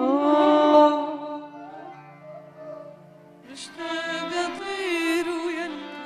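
A female singer with a microphone sings a slow, wordless, ornamented Arabic vocal line over soft instrumental backing. The voice swells in the first second, drops back, then comes in strongly about three and a half seconds in with heavy vibrato and melismatic turns.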